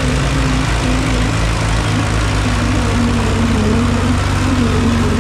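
Tractor diesel engine running steadily and loud, a low drone with a wavering higher tone above it.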